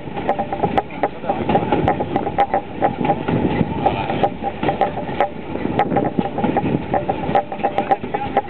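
Narrow-gauge steam train running, heard from an open passenger carriage. The wheels and carriage clatter and rattle continuously, with short metallic ringing tones that come and go.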